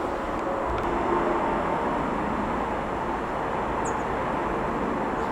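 Steady distant engine rumble, with a brief high chirp about four seconds in.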